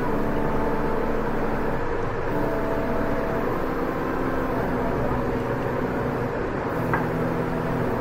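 Steady mechanical background hum, an even noise with a few faint steady tones in it, and a light click near the end.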